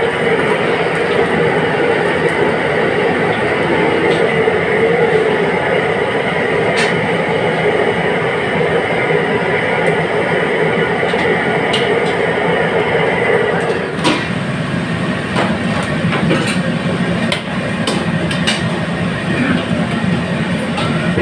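Commercial gas wok range burner running with a steady rushing noise while oil and a yellow mixture fry in the wok, with a metal ladle knocking against the wok now and then. The steady noise changes about two-thirds of the way through.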